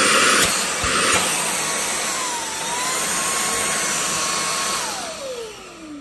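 Inse S600 cordless stick vacuum running with a steady high motor whine, a few clicks in the first second. Its pitch dips briefly midway, then from about five seconds in the whine falls away as the motor spins down.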